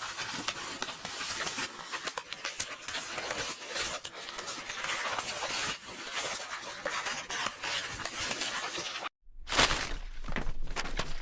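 Paper rustling with dense, continuous crackling, as book pages are handled. After a sudden break about nine seconds in, louder separate swishes of paper follow.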